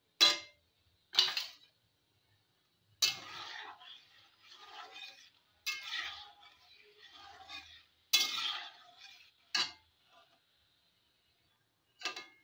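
Metal slotted spatula stirring and scraping in a metal kadai of simmering raw mango pieces as sugarcane jaggery is stirred in. It clanks sharply against the pan about six times, with softer scraping between the knocks.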